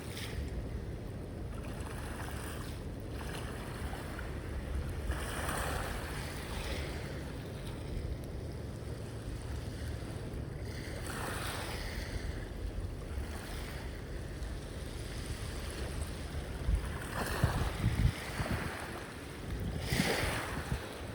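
Sea waves washing up on a shore, with a hissing surge about every few seconds, over a steady low rumble of wind on the microphone.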